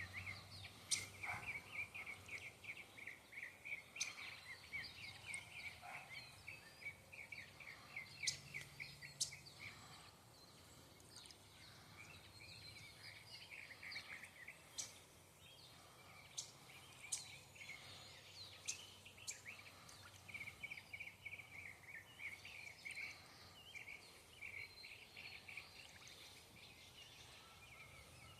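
Faint small birds chirping in quick, repeated runs of notes, with a few sharp ticks scattered through.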